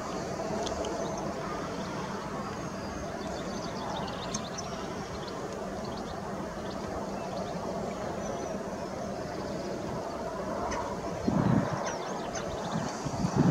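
Outdoor background: a steady low rumble, with faint high chirps of small birds scattered through it. A short, louder low sound breaks in near the end.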